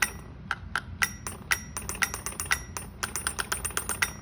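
Rapid, irregular tapping on a hard surface that rings faintly with each strike, several taps a second in uneven runs with short pauses between them.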